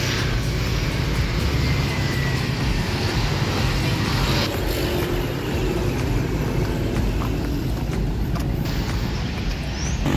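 Steady road traffic noise of motorbikes and scooters passing on a road, engines and tyres running without a break.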